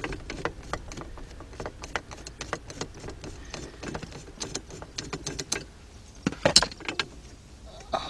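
Small metallic clicks and scrapes of a number three Phillips screwdriver working a screw out of a steering-wheel hub, with a few louder clicks about six and a half seconds in.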